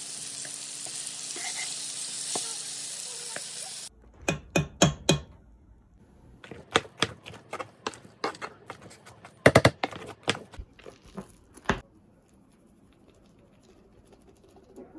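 Cod fillets sizzling steadily in oil in a frying pan. About four seconds in this cuts off suddenly and gives way to a metal potato masher knocking against the inside of a pot of boiled potatoes: sharp clacks in quick, uneven runs that stop a few seconds before the end.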